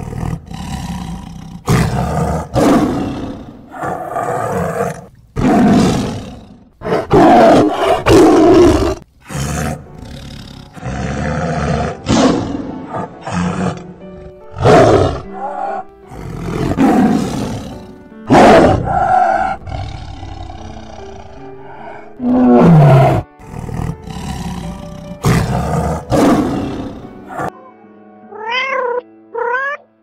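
Lions roaring and grunting in a long series of loud calls, about one every second or so, some falling in pitch, over background music.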